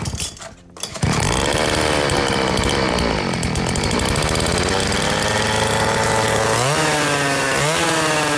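Motorcycle engine running, coming in loud about a second in, its pitch dipping and rising, then revved up in two quick blips near the end.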